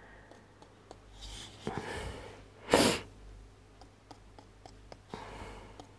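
A person's quiet breathing, with one short, sharp sniff about three seconds in that is the loudest sound, and a few faint light ticks.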